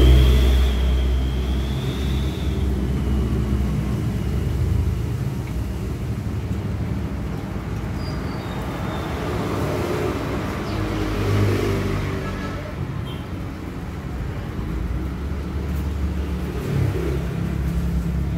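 A motor running steadily with a low hum. A faint, wavering high whistle sounds over it in the first few seconds.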